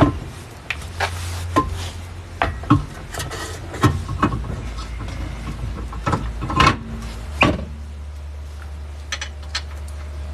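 Irregular metallic clanks and knocks from a wheel and hand tools being handled while a wheel is mounted back onto a car, over a steady low hum.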